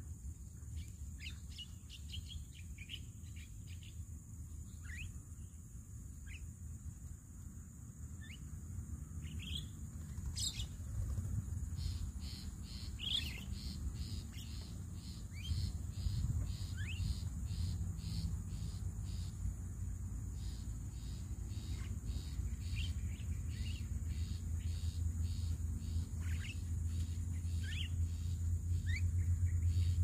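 Javan mynas calling with short, scattered chirps over a steady high insect drone. From about twelve seconds in, an evenly spaced chirp repeats about twice a second, and a low rumble grows louder toward the end.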